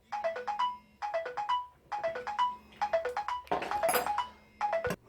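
Mobile phone ringtone: a short phrase of marimba-like notes stepping down and back up, repeated about once a second, with a brief burst of noise about three and a half seconds in.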